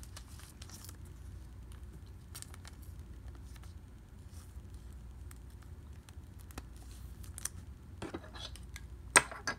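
Soft rustles and faint ticks of a baseball card being handled and slipped into a plastic sleeve, over a low steady hum. A sharp plastic click about nine seconds in, followed by a smaller one, as the card is set into a clear plastic display stand.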